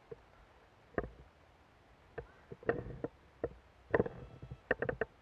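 Airsoft guns firing: sharp single cracks scattered about a second apart, then a quick string of four shots near the end.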